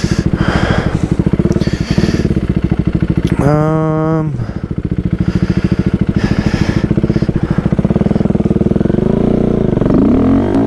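Single-cylinder engine of a Husqvarna Svartpilen 401 motorcycle running with a steady pulsing beat, revving up and down near the end as the bike is worked over a tree in its path.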